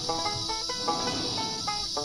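Music: a quick run of pitched notes, changing several times a second, over a steady high hiss.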